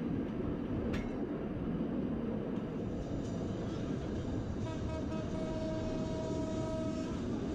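Passenger train running along the track with a steady rumble. About five seconds in, a horn sounds one steady note for a couple of seconds.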